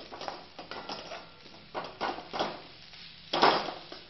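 A cooking utensil scraping and knocking against a pan as boiled potatoes are mashed and stirred together with spices, in irregular strokes, the loudest about three and a half seconds in.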